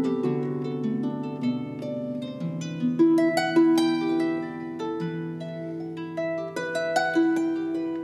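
Celtic harp played solo: a melody of plucked notes, several a second, ringing on over lower bass notes held beneath.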